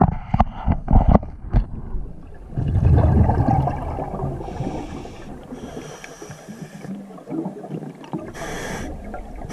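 A diver breathing underwater, heard through the camera's waterproof housing: a long bubbling rush of exhaled air about three seconds in, then several shorter hissing breaths. A few sharp knocks come first, at the very beginning.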